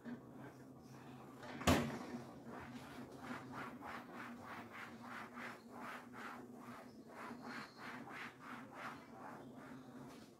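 A single sharp knock, then a cloth scrubbing a refrigerator's surface in quick back-and-forth strokes, about two to three a second.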